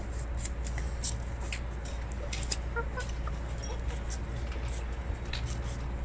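Black Silkie chickens feeding on a tiled floor: many short sharp clicks from their beaks pecking at the tiles, with a few quiet clucks around the middle, over a steady low hum.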